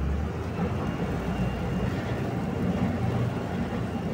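Engine of a motorboat running steadily while the boat is under way, with a low, even drone.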